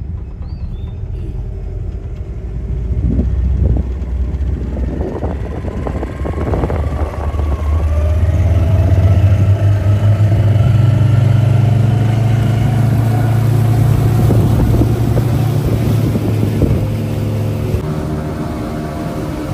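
A motorboat's engine running steadily, then getting louder and rising in pitch about eight seconds in as the boat picks up speed.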